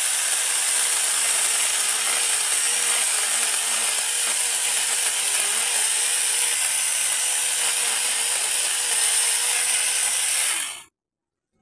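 Kamolee 8-inch brushless battery mini chainsaw running steadily, its chain chattering through bamboo, with a faint motor tone that wavers under load; the sound cuts off abruptly near the end.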